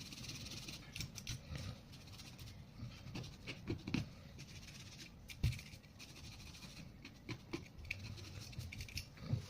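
Irregular small clicks, taps and scrapes from hands and tools working on the parts of an opened laptop, with one sharper click about five and a half seconds in.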